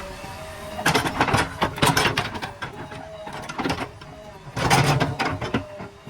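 Backhoe loader at work: bursts of metallic clattering and knocks, about a second in and again near five seconds, over a faint steady whine.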